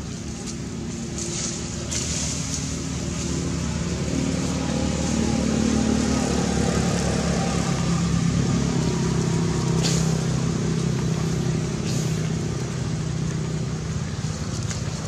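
A motor vehicle's engine running, growing louder over the first half and easing off slightly near the end. A few faint clicks sound above it.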